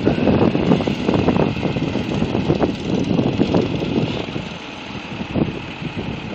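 Diesel engine of a Dongfeng garbage compactor truck running as the truck drives slowly, with wind buffeting the microphone in uneven gusts.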